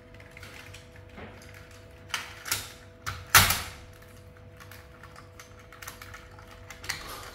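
Plastic clicks and knocks from a small Paw Patrol toy vehicle being handled and set down on a tile floor, a short cluster of them a couple of seconds in and one more near the end.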